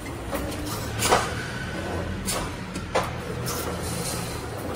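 Automatic wire mesh welding machine running: a steady low hum broken by sharp knocks, the loudest about a second in and again about three seconds in.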